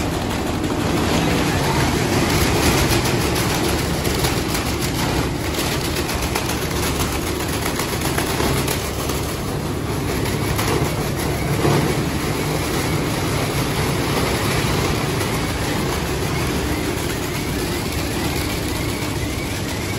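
10 hp drum-type plastic dust cleaning machine running steadily, its electric motor and belt-driven drum making a dense mechanical noise while waste plastic bags are fed through it.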